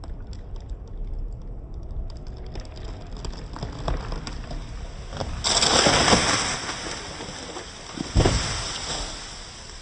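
A tree coming down: crackling and snapping of wood, then a loud rushing crash about five and a half seconds in, and a heavy thud about eight seconds in.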